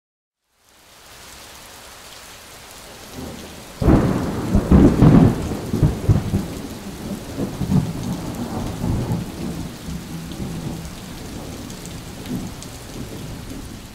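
Steady rain hiss that fades in, then a loud clap of thunder about four seconds in that rumbles and crackles before rolling away over several seconds while the rain keeps falling.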